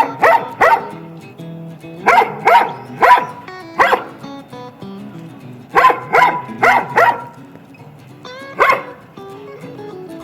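A dog barking in quick runs of three or four sharp barks with short pauses between them, and a last single bark near the end, over background music.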